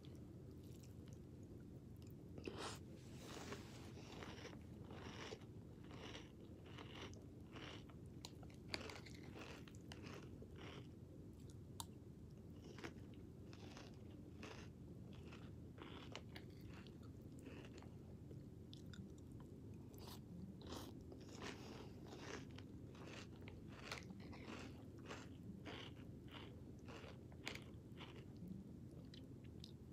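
Person chewing crunchy Cinnamon Toasters cereal (off-brand Cinnamon Toast Crunch), with a crisp crunch about once a second, over a faint low background hum.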